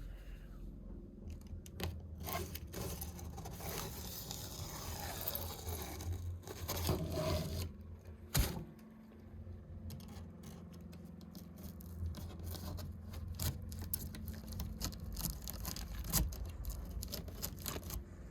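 Scraping and tearing of cardboard and packing tape as a shipping box is worked open by hand, with scattered rustles and clicks and one sharp knock about eight seconds in.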